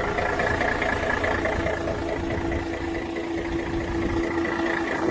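Truck engine idling steadily while the truck stands still, with a constant low rumble and a steady hum.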